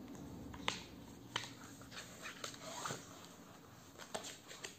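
Handling of a hardcover picture book as it is shown and opened: a few sharp taps over faint rustling, with a low hum in the first second or so.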